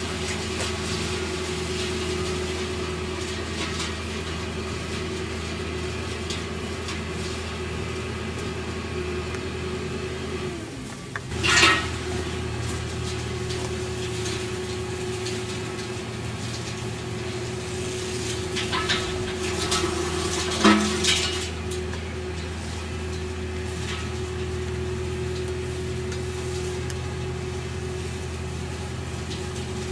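Road-rail excavator's diesel engine running steadily with a constant hum. About eleven seconds in there is a sharp metallic clank, and a few more clanks come roughly two-thirds of the way through as the attachment works on the track.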